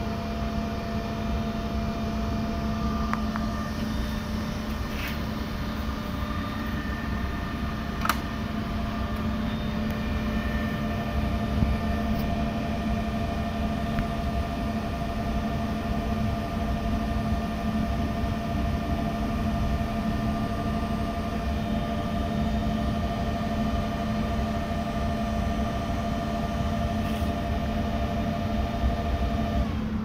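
Steady machine hum from a variable-frequency drive cabinet, with several high whining tones over a low rumble. Near the end the whine dips slightly and stops.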